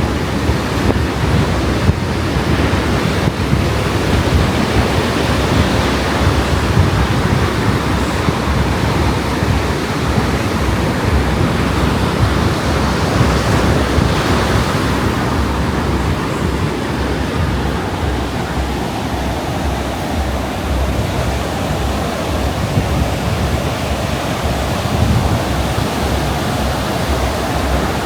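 Ocean surf washing onto a beach in a steady roar of noise, with wind buffeting the microphone in low rumbling gusts; the wash swells a little about halfway through.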